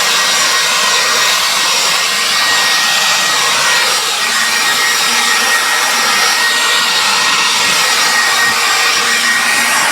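Battery-powered cordless leaf blower running steadily at full power, a loud rushing of air with a thin high whine that fades out near the end.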